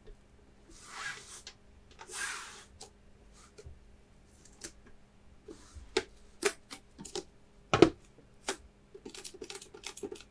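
Fingers handling and tapping on Pokémon trading-card tins and their packaging: two soft swishes, then a run of sharp irregular taps and clicks, the loudest a little before the end.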